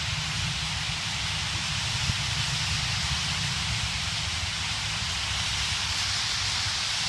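Dense, steady massed calling of thousands of birds, blending into a continuous hiss-like wash with no single call standing out, over a low rumble.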